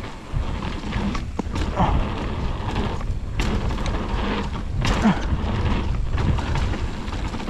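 Wind buffeting an action camera's microphone, with scattered knocks and rattles throughout.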